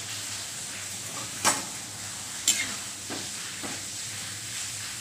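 Fritters sizzling steadily in hot oil in a kadai, with two sharp metal clinks about a second apart near the middle and two softer knocks after, as the slotted spoon lifts fried bhajiya out.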